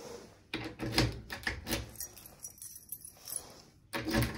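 A bunch of keys jangling, with sharp clicks and knocks, in a busy stretch about half a second in and again near the end.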